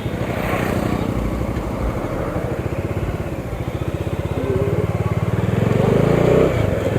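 Motorcycle engine running at road speed with wind rushing over an action camera's built-in microphone; the engine grows louder about five seconds in, then drops back briefly near the end.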